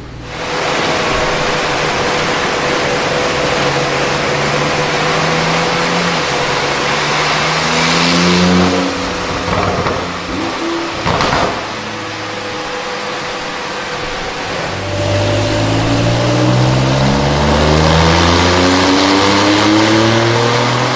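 Porsche 992 Turbo S twin-turbo 3.8-litre flat-six, fitted with a Capristo exhaust and 200-cell catalysts, at full throttle on a dyno, its note rising through a pull that peaks about eight seconds in and then drops away. A sharp crack comes near eleven seconds, and a second full-throttle pull begins rising at about fifteen seconds.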